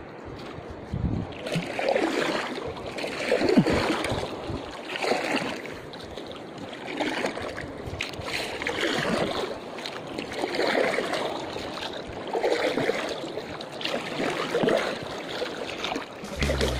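Wooden canoe paddle strokes in the sea, a rhythmic splash and swish of water about every two seconds.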